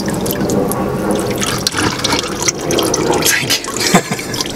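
Warm engine oil running and dripping into a drain bucket from the oil filter mount, with a few small clicks and knocks of handling.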